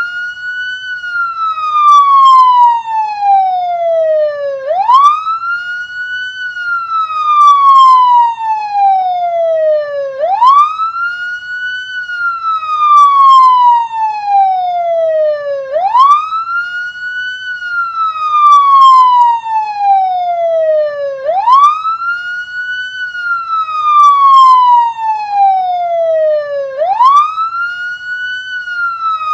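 Police car siren sounding its wail: each cycle sweeps quickly up in pitch over about a second, then glides slowly down for about four seconds, repeating about every five and a half seconds.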